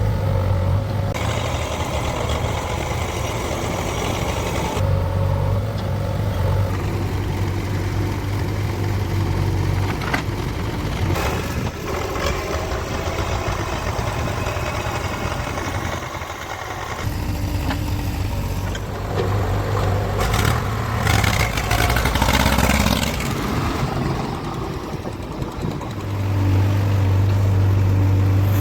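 Diesel engine of a JCB backhoe loader running while it digs and loads soil, with a steady low hum that rises and falls. The sound changes abruptly several times.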